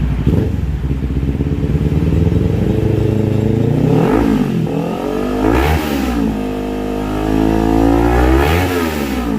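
Kawasaki Z400 parallel-twin engine running through a Villain Octagon aftermarket exhaust: idling, then blipped three times, each rev rising and falling back.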